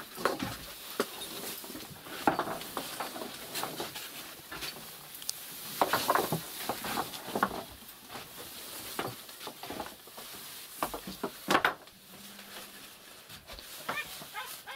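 Irregular rustling and scuffing of a seine fishing net and plastic sheeting being handled, in uneven bursts with a few sharp knocks.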